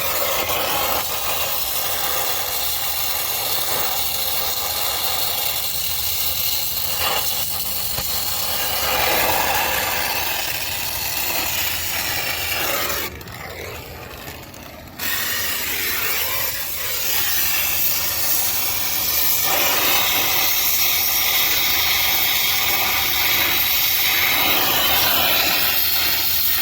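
Brazing torch with a small zero-size tip, its flame hissing steadily while it heats copper refrigerant piping red-hot. The hiss drops away briefly about halfway through, then resumes.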